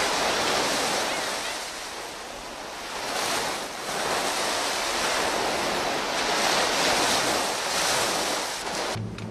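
Surf breaking on a sandy beach: a steady rushing wash of waves that swells and ebbs as each wave breaks and runs up the sand.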